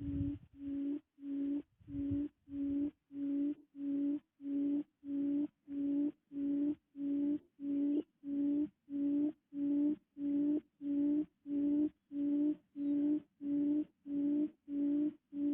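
A low, steady tone beeping in short, evenly spaced pulses, about one and a half a second, without change.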